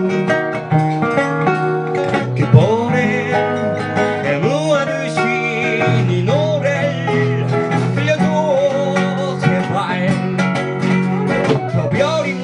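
Live band music led by plucked guitar over a steady bass line, with a melody line that bends and slides above it.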